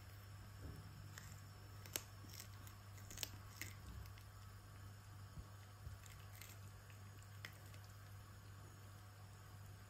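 Chihuahua chewing and tugging at a cabbage leaf: faint, scattered wet crunches and clicks. The sharpest clicks come about two seconds in and just after three seconds.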